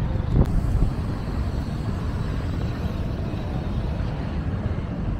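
Steady low rumble of city traffic, with a brief click about half a second in.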